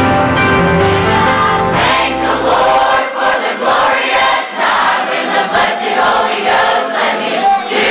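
Large church choir singing a gospel song. About three seconds in the low accompaniment drops away, leaving the massed voices.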